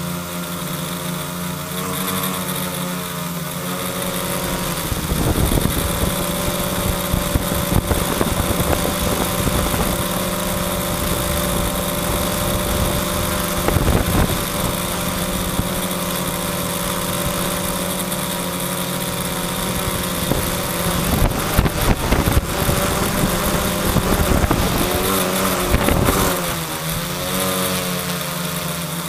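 Electric motors and propellers of a student-built quadcopter whirring steadily, heard from a camera mounted on its frame. The pitch shifts as the motors change speed near the start and again near the end, and a low uneven rumble sits under the whir through most of the flight.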